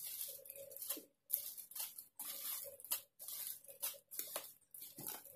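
Irregular light taps, clicks and rustles from hands handling things on a wooden tabletop, about two a second.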